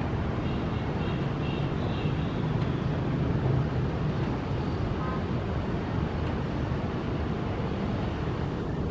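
Steady low rumble of jet airliner engines idling during taxi, heard from afar. A few faint high chirps come in the first couple of seconds.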